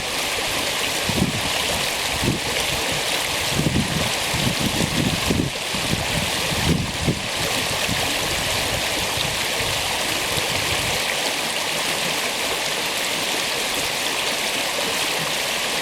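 A spring creek's running water, rushing steadily. Gusts of wind rumble on the microphone through the first half and die away later.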